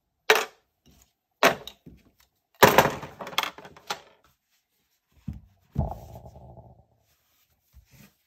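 Handling noise from unboxing a tablet and its packaging: several sharp knocks and clatters in the first four seconds, then a dull thud about five and a half seconds in, followed by a second of scraping rustle.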